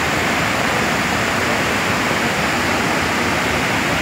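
Landslide-swollen floodwater rushing over a debris-choked bridge and through a boulder-strewn stream bed: a loud, steady rush of water with no let-up.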